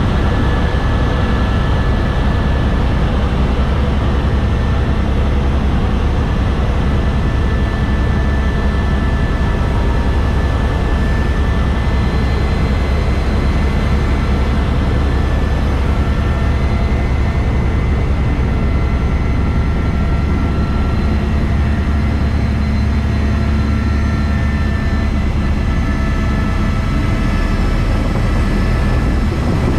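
Helicopter in flight heard from inside the cabin: a loud, steady low drone of the engine and rotor, with a few thin steady whining tones above it.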